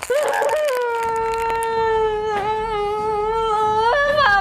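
A young woman's wailing cry: one long, drawn-out note held at a steady pitch, jumping higher near the end.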